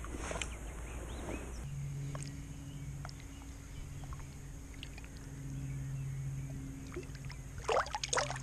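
Shallow water sloshing and small splashes around hands holding a tench in the margins as it is released, with a short loud burst of splashing near the end as the fish kicks off.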